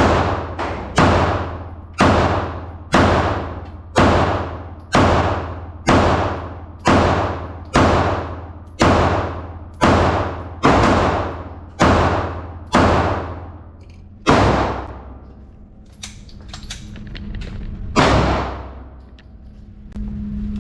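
Gunshots at an indoor range, fired steadily about once a second, each followed by a short echoing tail. A run of about fifteen shots stops a little over halfway through; after a lull with a few small clicks comes one more shot near the end.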